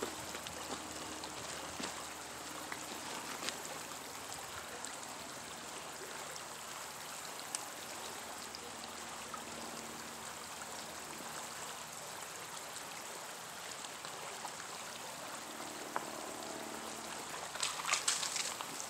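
Shallow creek water running and trickling steadily over a riffle, with a short cluster of sharper splashing sounds near the end.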